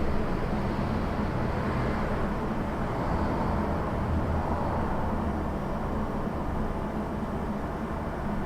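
Steady electrical hum from a cash machine (ATM), with a continuous rumble of street traffic in the background.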